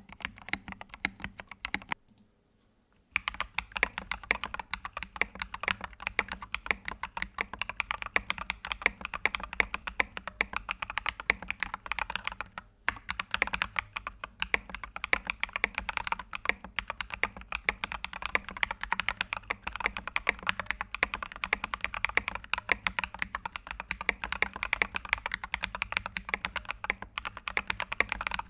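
Typing on a computer keyboard: a fast, continuous run of key clicks. About two seconds in it stops for about a second, then a different keyboard's typing starts and runs on steadily.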